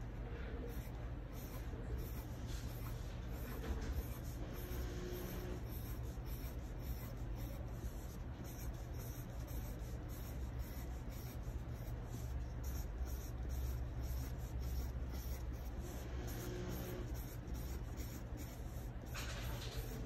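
Pencil drawing small circles on a sheet of paper: light, continuous scratching of the tip on the paper, over a steady low hum.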